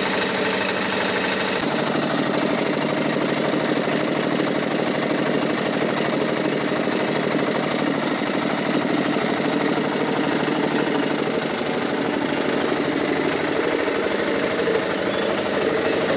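Engine of a trailer-mounted dewatering pump running steadily at a constant speed, pumping floodwater through its hoses.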